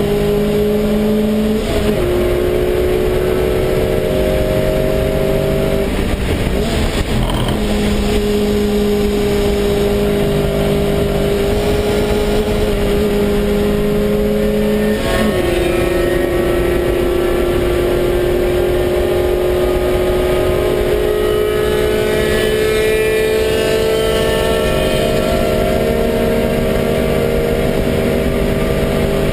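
Lotus Cup production race car's engine heard from inside the cockpit, pulling hard at high revs with its pitch climbing slowly. There are sharp drops in pitch at upshifts about two seconds in and again about fifteen seconds in, and a short rough patch around seven seconds in.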